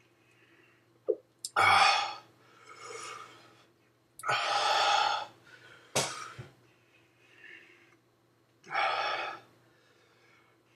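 A man breathing hard and noisily through his mouth, several heavy breaths under a second long each, with short catches between them, as he suffers the burn of a Trinidad Moruga Scorpion pepper.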